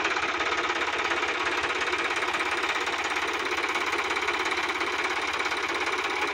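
Sonalika DI-50 RX tractor's diesel engine running steadily with a rapid, even clatter.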